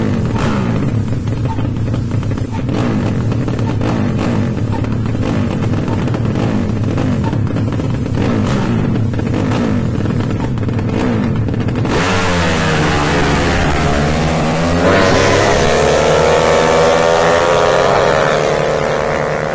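Racing underbone motorcycle engines revving in short repeated blips; about twelve seconds in a louder, brighter engine takes over, its pitch dipping and then climbing steadily as it accelerates hard.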